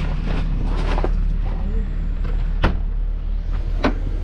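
Diesel engine of a 2013 Toyota Fortuner idling steadily. The engine has a fuel knock that new injectors, common rail and fuel pump have not cured. Two sharp clicks come about two and a half and four seconds in.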